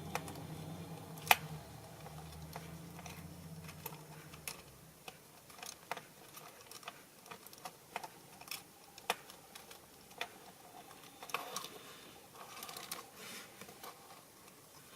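Small mechanism of a Bandai model steam road roller under test: a low steady hum that stops about four seconds in, then irregular small clicks and taps, with one sharp click about a second in.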